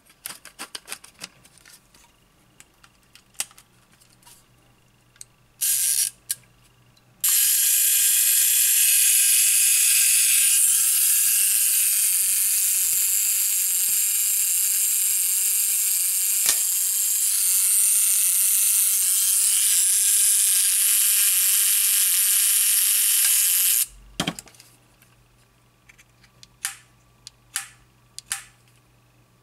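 Zorki-4 rangefinder camera body being handled: quick clicks as its top knob is turned, with small metal taps. After a brief burst, a loud steady hiss runs for about seventeen seconds, then light clicks and taps return.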